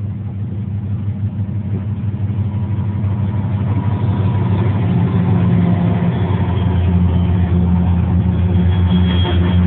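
Low, steady rumble of a car driving, heard from inside the car, growing louder over the first few seconds and then holding.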